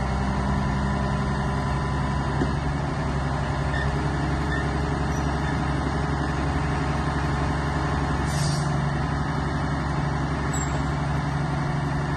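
Caterpillar 140H motor grader's diesel engine running steadily while its hydraulics move the blade, with a brief hiss about eight seconds in.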